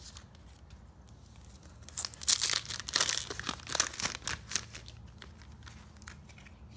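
Foil wrapper of a Match Attax trading card packet being torn open and crinkled: faint rustling, then a burst of sharp crackling about two seconds in that lasts a couple of seconds.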